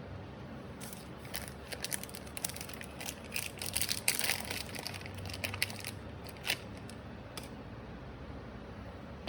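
Irregular small clicks and crinkling, as of small parts and plastic being handled, densest about four seconds in and dying away near the end.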